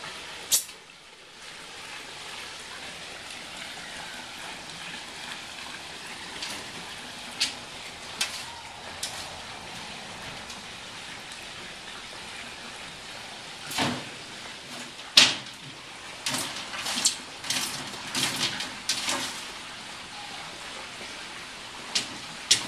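Afghan hound's paws and claws knocking, tapping and scraping on a glass tabletop and a plastic cricket cage: a few scattered clicks at first, then a burst of repeated knocks in the second half, over a steady hiss.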